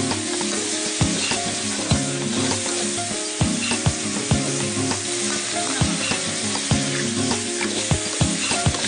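Stir-frying in a wok: shredded pork and pepper strips sizzling steadily in hot oil, with the spatula knocking and scraping against the wok about once a second as it tosses the food.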